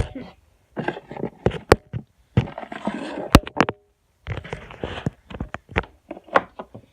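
Slime being squeezed and kneaded by hand, in squelching bursts with a few sharp pops of trapped air bubbles.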